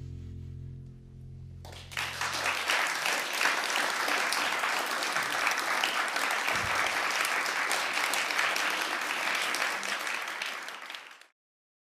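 The jazz band's last held chord rings on low and fades out, and about two seconds in the audience breaks into applause, which is cut off suddenly near the end.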